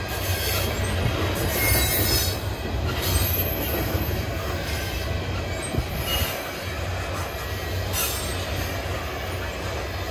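Freight cars of a long CPKC manifest freight train rolling past: a steady rumble of steel wheels on rail, with brief high-pitched squeals that come and go every second or two.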